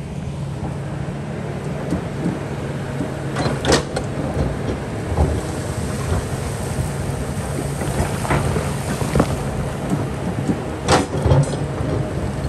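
Kobelco hydraulic excavator's diesel engine running steadily under load while it digs rock, with sharp knocks of the bucket and rocks striking about four seconds in, around eight seconds, and twice near the end.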